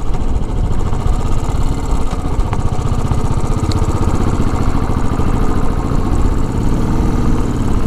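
Motorcycle engine running steadily under way, a low pulsing rumble with road and air noise over it.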